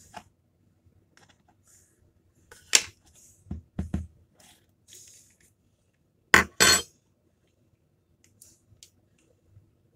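Clinks and knocks of a metal spoon, a plastic lid and an instant noodle cup being handled on a table, with a pair of loud knocks a little past the middle. Faint crinkling clicks near the end as a sauce sachet is opened.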